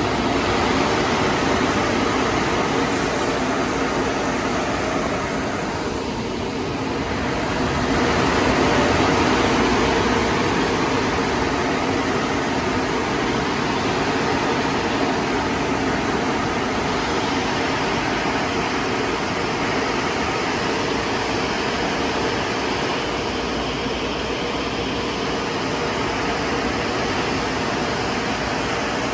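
Automatic car wash tunnel equipment running, chiefly its big electric air-dryer blowers: a loud, steady rush of air and motor noise that swells slightly about eight seconds in.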